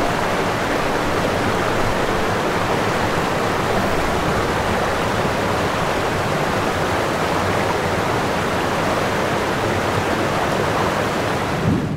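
Steady, loud rushing noise, even from low to high with no tones or rhythm. It cuts off suddenly at the end.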